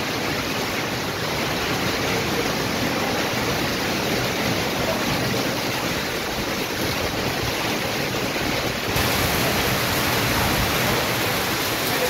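Heavy rain pouring steadily onto a corrugated metal roof and the surrounding leaves, becoming a little hissier about nine seconds in.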